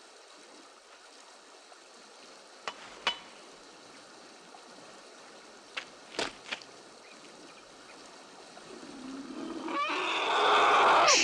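An elephant trumpeting: a loud call that swells up over the last few seconds. A handful of sharp knocks comes before it.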